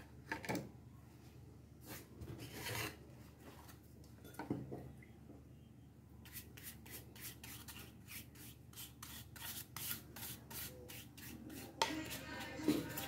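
A bristle paintbrush scrubbed back and forth over a plywood cutout, making quick scratchy strokes about three a second from about six seconds in. Before that, plywood pieces are handled and knocked lightly, and there is a sharper knock near the end.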